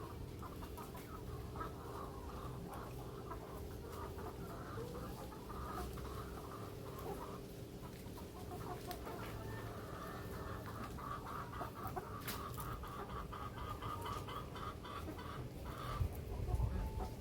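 Free-range Indonesian village chickens (ayam kampung) clucking in quick, repeated runs, with a steady low hum underneath.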